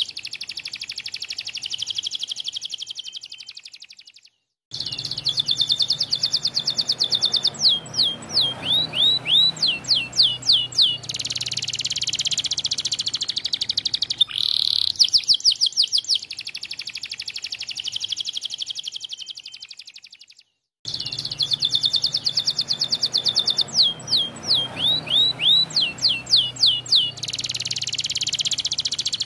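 White canary singing a continuous song of rapid trills and rolls with sweeping, down-slurred whistled notes. The song breaks off for a moment twice, once about four seconds in and again about two-thirds of the way through.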